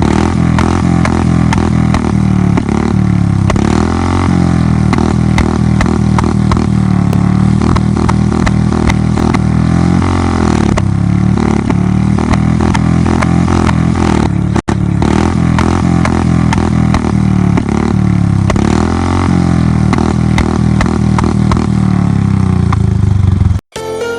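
Royal Enfield Bullet 350's single-cylinder engine through an aftermarket 'Monster' silencer, revved up and down again and again, with sharp exhaust pops crackling through the running: the firecracker ('pataka') sound.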